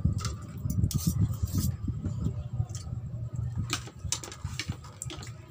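Close-up chewing and mouth sounds of someone eating, with small clicks of a spoon and fork against a plate and a glass bowl.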